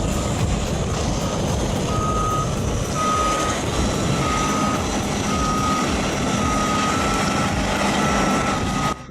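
Reversing alarm on heavy equipment beeping about once a second over the loud, steady running of a heavy machine's engine. The beeps begin about two seconds in, and the machine noise drops away abruptly near the end.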